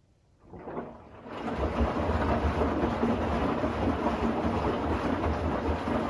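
Bosch Series 6 i-DOS front-loading washing machine's drum starting to turn after a pause, about half a second in, and building within a second to a steady churning of wet laundry and sloshing water with a low rumble.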